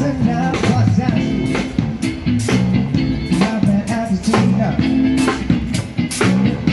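A live street band playing: electric guitar and a drum kit with a steady beat.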